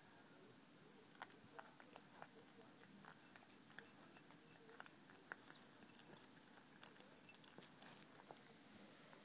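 Faint, irregular wet clicks of a cat chewing and lapping tuna from a bowl, starting about a second in.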